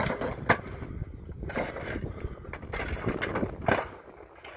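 Shovels and hoes scraping through broken brick rubble, with a few sharp knocks as the tools strike the bricks.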